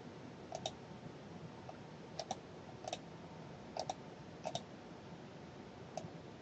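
Computer mouse buttons clicking: about six short, sharp clicks spread through the stretch, several of them in quick pairs, over a faint steady hiss.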